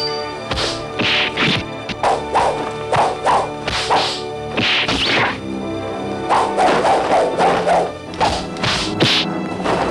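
Dubbed fight sound effects: a rapid, irregular series of whacks, thuds and swishes of blows and swords striking, over background music.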